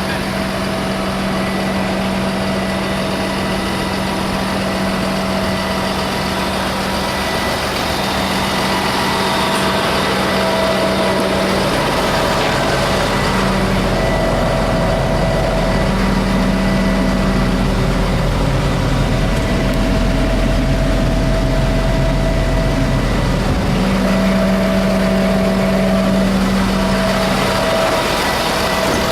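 2007 Ford F750 service truck's diesel engine idling steadily, with a deeper low rumble joining about twelve seconds in.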